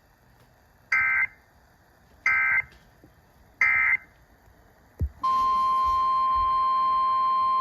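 Three short bursts of EAS digital data screech, about a second and a quarter apart: the SAME end-of-message code. After a click about five seconds in, a steady 1050 Hz NOAA Weather Radio warning alarm tone begins and holds.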